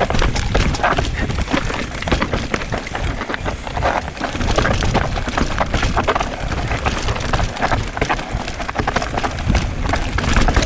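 Mountain bike riding fast down a loose, dry dirt trail: tyres crunching over dirt and rocks while the bike rattles and clatters with irregular knocks, over a steady low rumble of wind on the microphone.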